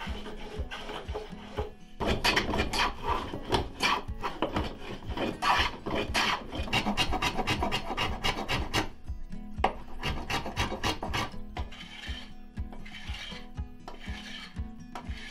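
Repeated hand-tool strokes shaving and filing the edge of a wooden desk leg, each a short rasping scrape, coming thick and fast for several seconds and then sparser near the end. Soft background music underneath.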